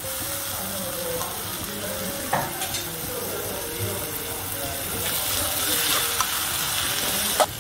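Chopped onions and tomatoes sizzling in hot oil in a metal kadai. The frying hiss grows louder in the second half as a spoon stirs and scrapes through the pan, with a couple of light knocks against the pan.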